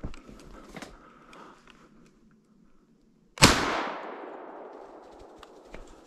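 A single shotgun shot about three and a half seconds in, its echo dying away over a second or so. Before it, only a few soft clicks and rustles.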